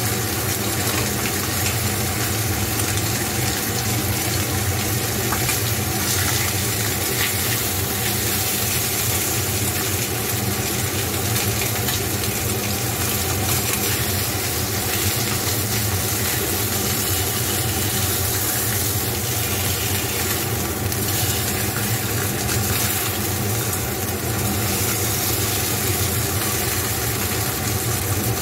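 Pork chops sizzling steadily in a frying pan on a gas burner, over a steady low mechanical hum.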